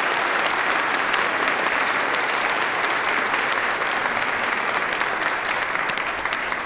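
Congregation applauding: many hands clapping in a dense, steady patter.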